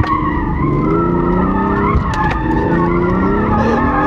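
Car tires squealing without a break as the car drifts, heard from inside the cabin, with the engine running underneath. Several wavering squeal tones slide up and down together.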